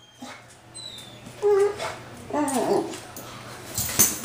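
Beagle whining in two short cries, the second sliding down in pitch, then a thump near the end as the dog rolls over on the tile floor.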